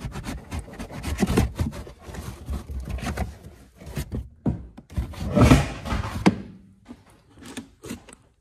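Trunk lining and trim being handled close to the microphone: rustling, rubbing and small knocks, loudest about five and a half seconds in, thinning to a few light clicks near the end.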